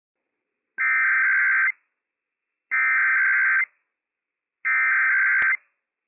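Emergency Alert System SAME header: three identical bursts of rapid two-tone digital data, each just under a second long with about a second of silence between them, the coded header that opens a Required Weekly Test broadcast on NOAA Weather Radio.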